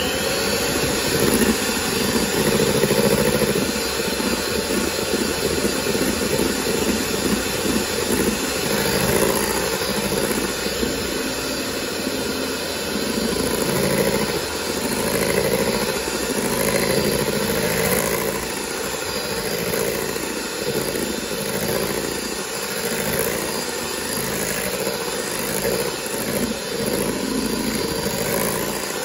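Electric hand mixer running steadily, its two wire beaters whipping cream in a stainless steel bowl.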